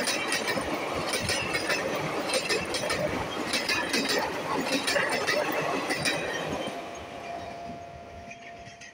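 Coaches of an Indian Railways express train running past, steel wheels clacking over the rail joints over a steady rumble. The sound dies away as the last coach recedes, about seven seconds in. A faint steady tone sets in near the end.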